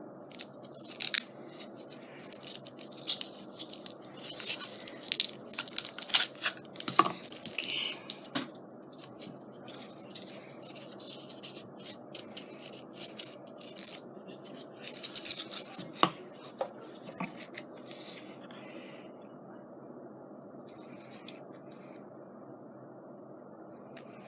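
Craft materials being handled: scattered rustles, crinkles and light taps of paper or ribbon, busiest in the first nine seconds, with a few more near the middle, over a steady background hiss.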